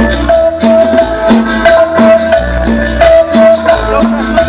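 Recorded cumbia played loud over a sound system, with a steady beat, bass and shaker.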